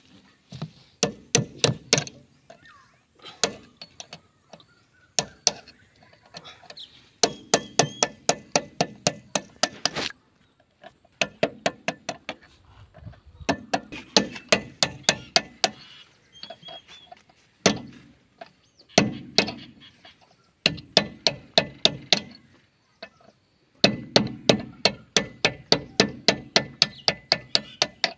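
Hammer blows on a metal tool held against a John Deere tractor's front wheel hub: rapid runs of sharp metal-on-metal strikes, several a second, with short pauses between runs.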